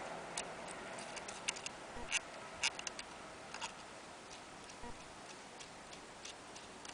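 Irregular light clicks and ticks from the mechanism of an antique Willcox & Gibbs sewing machine being handled, bunched in the first three seconds and sparser after.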